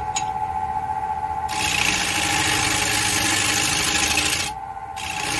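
Wood lathe running with a steady motor hum as a gouge cuts into a spinning black walnut bowl, hollowing it. The cutting hiss starts about a second and a half in, stops briefly near the end, then starts again.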